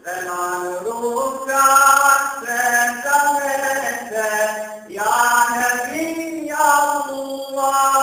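A man's voice singing an ilahija, a Bosnian Islamic devotional hymn. He holds long, ornamented notes that waver in pitch, and takes a short break between phrases about five seconds in.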